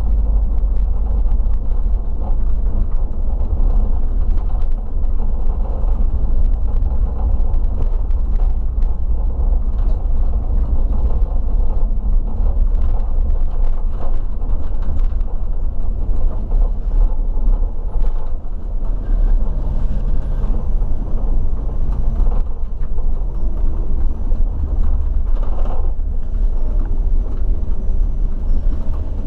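A regional coach being driven, heard from inside the cab: a steady low engine and road rumble, with light rattles and clicks scattered through it.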